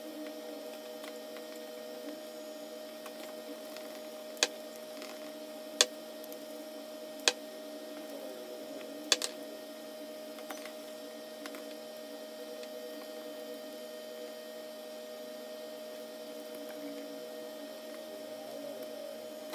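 Steady electrical hum, with four sharp clicks about a second and a half apart in the first half and a few fainter ticks later, from a small screwdriver, screws and plastic parts being handled while a radio controller is taken apart.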